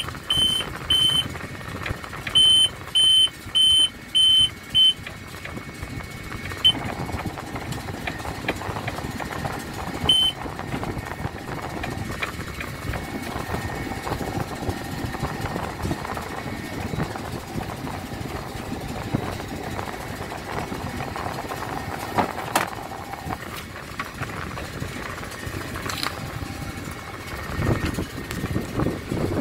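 A run of short, high electronic beeps, about two a second, in the first five seconds and once more about ten seconds in. Under them a steady engine hum runs on.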